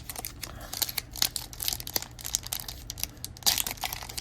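Crinkly wrapper of a trading-card pack being torn open and handled: a run of irregular scratchy crackles, loudest about three and a half seconds in.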